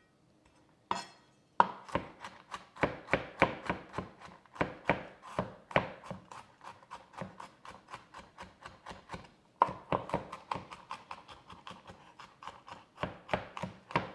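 Knife chopping squash on a cutting board: a steady run of quick strokes, about three to four a second, starting about a second and a half in with a brief pause about two-thirds through.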